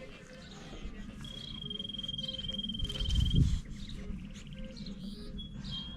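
Outdoor ambience: a high, steady insect-like trill lasting about two seconds over a low rumble that swells to a thump about three seconds in.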